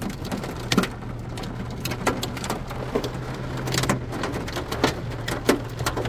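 Quarter- to ping-pong-ball-sized hailstones pelting the car, heard from inside the cabin: irregular sharp knocks, several a second, over a steady hiss of rain and a low hum.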